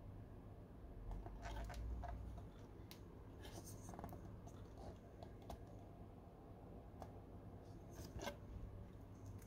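Faint handling noises from the motherboard unboxing: scattered light clicks and scrapes, a few seconds apart, over a low steady hum.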